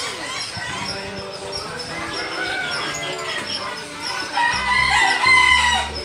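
Rooster crowing once, a long call of about a second and a half near the end, over background music.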